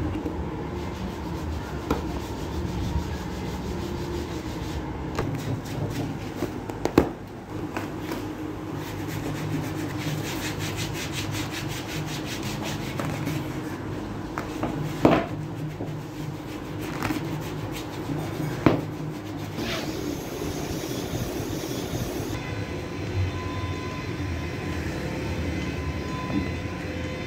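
Burnt upholstery fabric and foam being torn and pulled off a wooden divan by hand: continuous rustling, rubbing and ripping, with a few sharp knocks.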